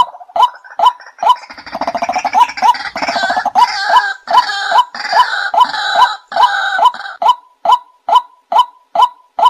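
White-breasted waterhen calling: a monotonous series of short, loud 'wak' notes, a little over two a second. From about a second in until about seven seconds, a harsher, croaking chatter of overlapping calls joins them. After that the steady notes carry on alone.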